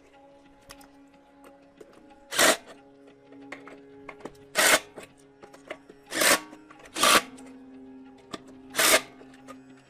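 Background music with five short, loud bursts of noise, each about a quarter of a second, spaced one to two seconds apart.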